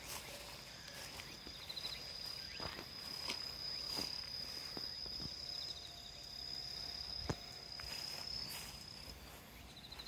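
An insect singing one steady high-pitched note that stops shortly before the end, with a few short high trills from another insect. Footsteps through grass and dry straw add scattered light crunches and clicks.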